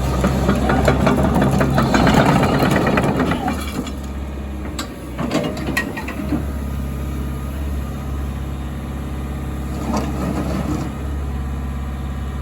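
Diesel engine of a 14-tonne crawler excavator running. It is louder and busier for the first few seconds, then settles to a steady idle, with a few short knocks about five seconds in.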